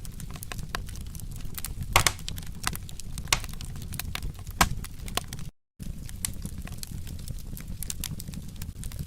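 Wood fire crackling, with irregular sharp pops over a low rumble, three louder pops standing out. The sound cuts out completely for a split second a little past halfway.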